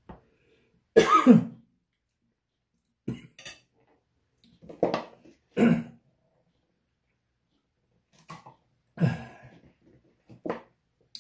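A man coughing and clearing his throat in short separate bursts, about six times, the loudest about a second in.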